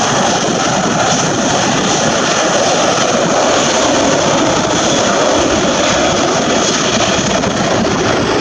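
Jet airliner engines at takeoff power: a loud, steady roar with a faint high whine over it.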